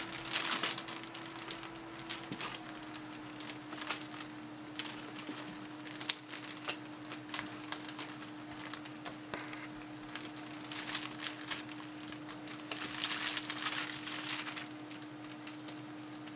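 Bengal kittens at play: irregular rustling and crinkling of a shiny plastic sheet, with light taps and scuffles of paws on carpet, busiest about half a second in and again from about eleven to fourteen seconds in. A steady faint hum runs underneath.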